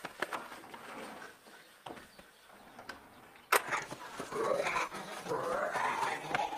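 A sharp knock about halfway through, then a man growling and panting in a zombie impression.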